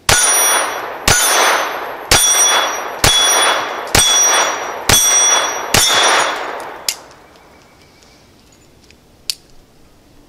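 Ruger LCP II .22 LR pistol firing CCI Mini Mag rounds, seven shots about a second apart. Each shot is followed by the clang and ring of an 8-inch steel gong being hit. A lighter click about a second after the last shot fits the round that failed to fire and jammed the pistol.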